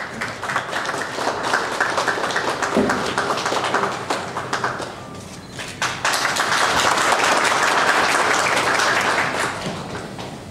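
Audience applauding with dense hand-clapping. It eases off about five seconds in, swells again louder and then fades near the end.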